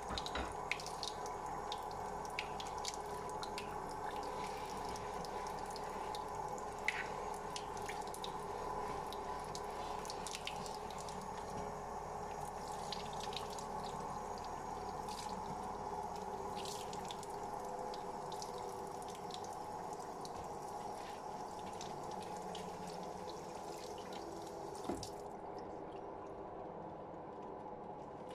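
Kitchen tap running into a sink, with water splashing and dripping off latex-gloved hands as they are scrubbed with a sponge under the stream. The running water stops near the end.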